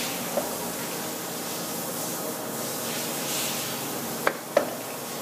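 Poreba TR135B2/3M heavy-duty lathe running with its chuck turning and power feed in use: a steady hissing machine noise, with a sharp click under half a second in and two louder clicks close together about four seconds in.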